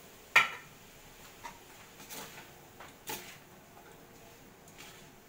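Metal spatula knocking and scraping against a metal wok as long beans and pork are stirred: a sharp clank about half a second in, then a few softer knocks.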